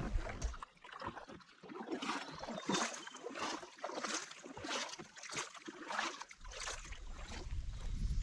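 Kayak paddle strokes: a row of short watery swishes, about one every half second to a second. Wind rumbles on the microphone from about six seconds in.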